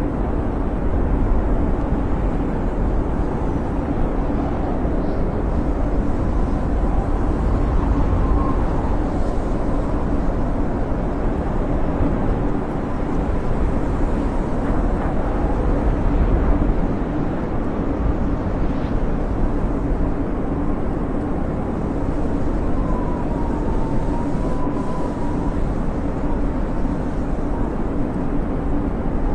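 Snowstorm wind howling: a steady, loud low roar, with faint thin whistles that waver up and down in pitch now and then.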